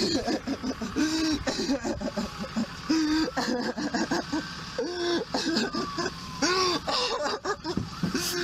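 A man's voice, praying aloud in distress, halting and strained, with the words too blurred to make out.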